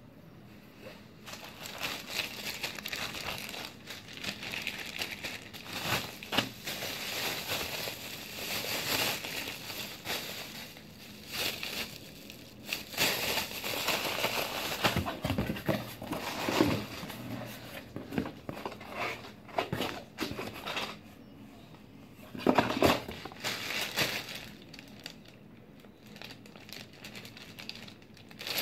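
Plastic rustling and crinkling in irregular bursts from hands handling parts close to the microphone, with short quieter pauses between bouts.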